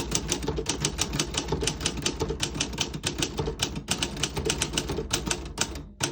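Keys of a 1954 Remington Quiet-Riter manual portable typewriter typed in a quick, even run, several sharp key strikes a second, with a brief pause near the end.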